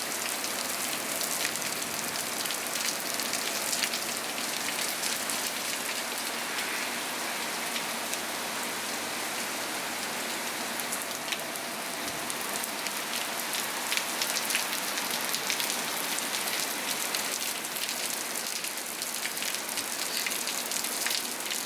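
Heavy rain falling steadily and hitting hard surfaces, with scattered sharp drop ticks.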